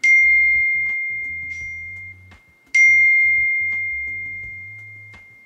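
Two high, clear chime dings at the same pitch, the second nearly three seconds after the first, each ringing out slowly for about two seconds, over quiet background music with a low bass line.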